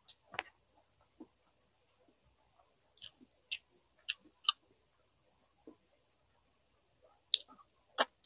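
Close-miked eating sounds: scattered sharp wet clicks and smacks from the mouth while chewing, about eight in all with quiet gaps between, the loudest about seven seconds in.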